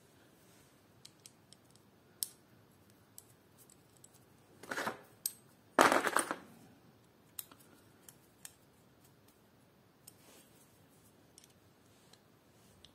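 Light clicks and handling noise of small metal parts of a mechanical disc brake caliper being fitted together by hand, with two louder short clatters about five and six seconds in.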